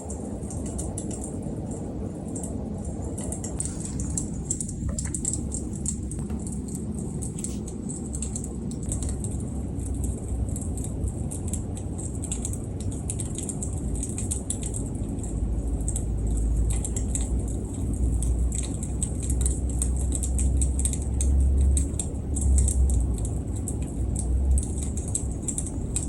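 Wood fire crackling, with a constant scatter of small sharp pops and ticks over a steady low rumble that grows louder in the second half.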